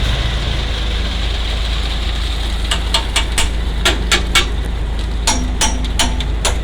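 Heavy diesel engine of the concrete machinery running steadily. From about three seconds in, sharp clanks come irregularly, two or three a second.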